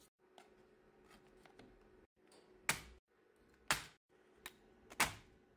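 Snap-fit clips of an Acer Spin 5 laptop's bottom cover popping loose as a pry tool works along the seam: three sharp clicks about a second apart, with a few fainter ones between them.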